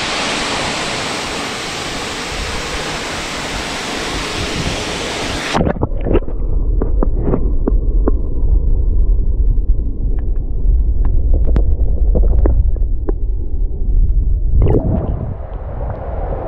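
Waterfall, a steady full rushing of falling water. About five and a half seconds in it suddenly changes to a muffled deep rumble with scattered sharp clicks: the water heard with the microphone under the surface of the pool. Near the end the rushing comes back as the microphone rises to the surface.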